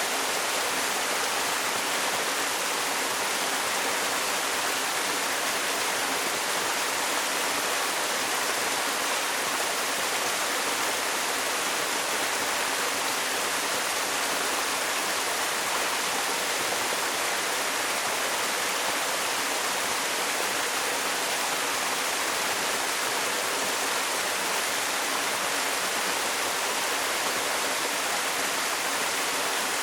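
A 7 m waterfall pouring steadily: an unbroken rush of falling water, bright and hissing rather than deep.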